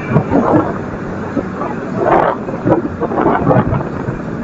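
Garbage truck running during yard waste collection, with irregular clattering and rustling that is loudest about two seconds in.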